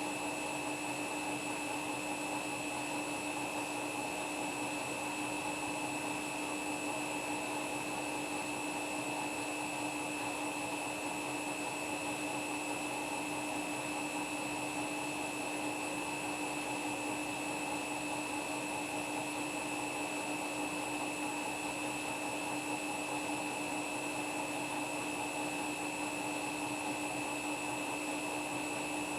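Washing machine on its spin cycle, loaded with footballs, its drum turning at a steady speed: an even rushing noise with a steady motor hum and a high whine that stay at one pitch.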